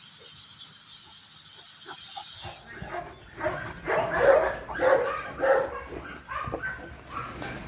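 Large mastiff-type dog barking several times in play: a quick run of loud barks a few seconds in, then softer ones. A steady hiss comes before the barks and stops as they begin.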